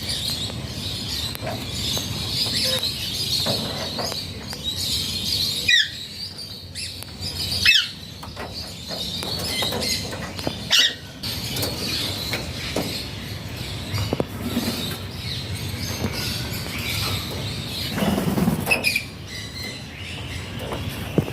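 Alexandrine parakeet chattering, with a few loud, sharp calls that slide downward in pitch, three of them spread through the first half.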